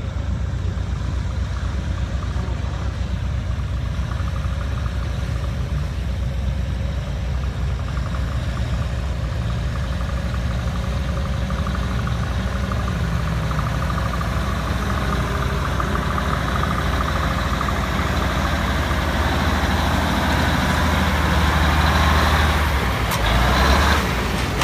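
Engine of a 5-ton six-wheel-drive truck running as it drives off-road: a steady low drone that grows louder and harsher through the second half, then dips briefly near the end.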